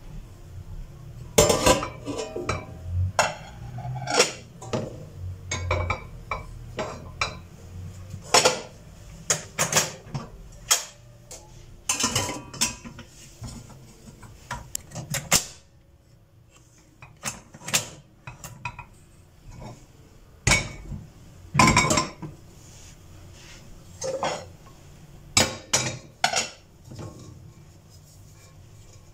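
Dishes and cutlery clinking and clattering in irregular sharp knocks, with a brief lull around the middle.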